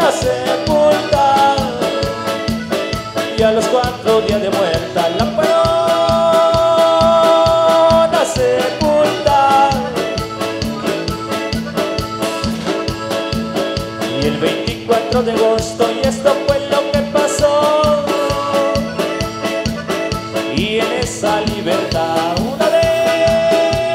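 Live band playing a corrido costeño: electric bass, keyboards, congas and drum kit keeping a steady dance beat, with held keyboard or vocal notes and a man singing at times.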